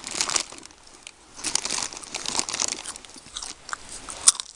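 Someone eating Pizza Supreme Doritos: crisp tortilla chips crunching between the teeth in irregular bites and chews.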